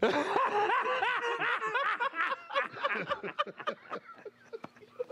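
Men laughing hard, a fast run of pitched laughs in the first few seconds that thins into quieter chuckles toward the end.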